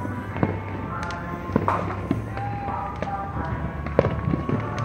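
Fireworks going off across the city, a scatter of sharp bangs and pops, the loudest about four seconds in, over music playing.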